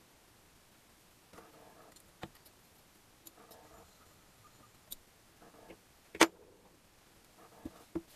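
Small metal clicks and knocks as steel gears and shafts are worked into the aluminium crankcase half of a Gilera Sport 150 engine, with short rustles of handling between them. One sharper metallic clack about six seconds in is the loudest, followed by a few lighter clicks near the end.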